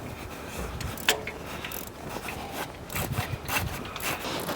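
A ratchet wrench and socket clicking in short, irregular strokes as spark plugs are loosened and removed.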